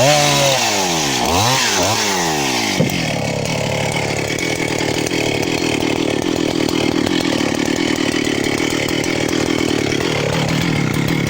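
Two-stroke 272 chainsaw revved up and down several times in quick succession, then, after a sharp click about three seconds in, running steadily at a lower pitch.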